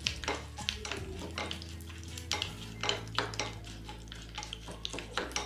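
Mustard seeds popping and sizzling in hot oil in a small pan, with dried red chillies and curry leaves, while a metal spoon stirs and clinks against the pan. There are many irregular sharp pops and clicks.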